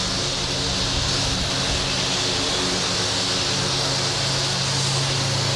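Turboprop airliner's engines running steadily: a constant low drone with a high hiss over it.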